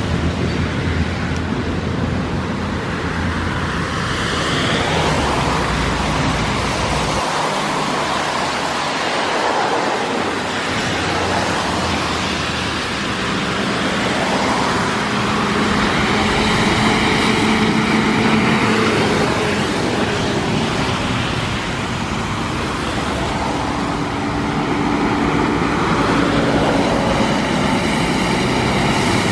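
Steady road traffic on wet pavement: tyre hiss and the engines of passing vehicles, with a city bus approaching near the end.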